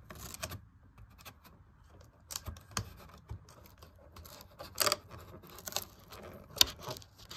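Cardboard box packaging being handled and pulled at, giving irregular scratches, scrapes and light taps, with two louder knocks, one about five seconds in and one near the end.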